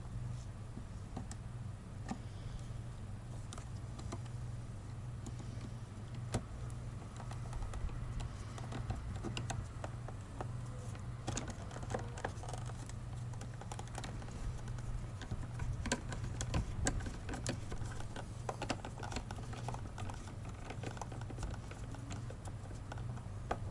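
Irregular light clicks and taps from handling the plastic mirror housing and driving its screws back in, over a steady low hum. The clicks come thicker through the middle.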